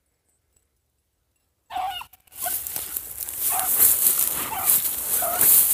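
Nearly silent at first; about two seconds in, rabbit-hunting dogs start barking, short barks coming a little under one a second, over a loud steady hiss.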